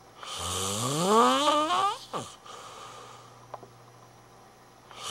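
A person snoring: one loud snore whose pitch rises steadily over nearly two seconds, ending in a quick falling sweep, then a pause before the next rising snore starts near the end.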